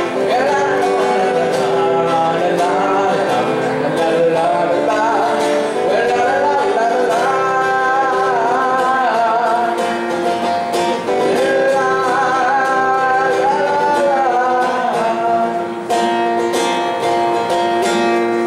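A song performed live: a singing voice over guitar accompaniment, with no clear words.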